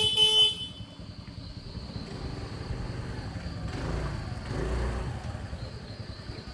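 Road traffic: a vehicle horn sounds a steady tone that stops about half a second in, followed by engine rumble and road noise that swells as a vehicle passes about four seconds in.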